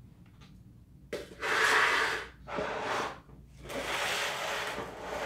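A woman's heavy breathing, three long noisy breaths, as she strains leaning over to shift potted plants.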